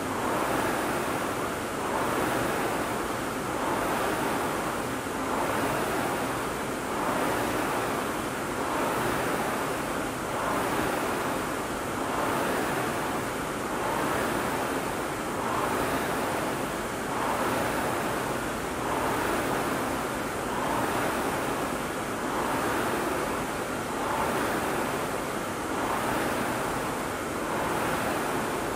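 Rowing machine's fan flywheel whooshing with each stroke, swelling and fading evenly about once every two seconds as it is rowed at a steady pace.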